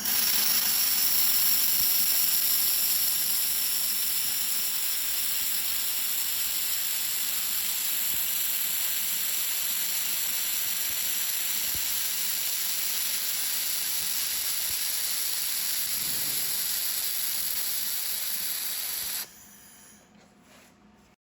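4000 W handheld laser welder running a weld: a steady high hiss, a little louder for the first few seconds, that stops suddenly about nineteen seconds in and leaves a faint tail for another two seconds.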